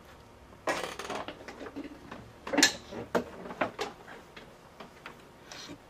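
Hands handling a laptop and its parts on a desk: an irregular string of small clicks, knocks and clatter for a few seconds, then a brief rustle near the end.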